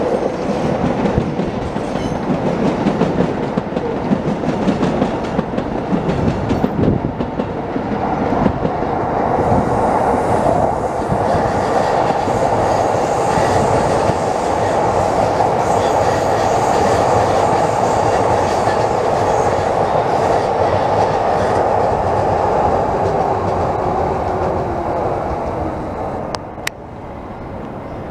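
Electric passenger trains running through the station tracks: a continuous rumble of steel wheels on rail with clickety-clack over the joints, easing off near the end.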